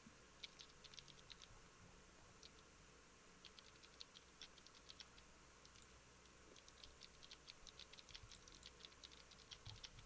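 Faint computer keyboard typing: short clicks in quick, irregular runs with small pauses between them.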